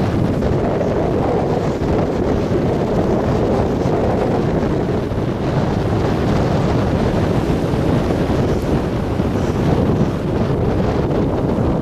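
Strong wind blowing across the microphone: a steady, loud, rumbling noise that stays heaviest in the low end, with no breaks.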